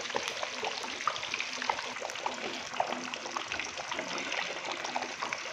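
A large piece of marinated fish deep-frying in hot ghee in a big aluminium pot: a steady sizzle with many small crackles and pops.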